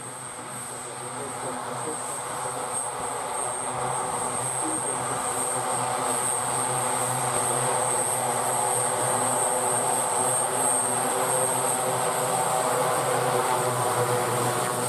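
PZL M28 twin-turboprop taxiing closer with both engines running: a steady propeller hum of several layered tones under a high, thin turbine whine. It grows louder over the first five or six seconds as the aircraft approaches, then holds steady.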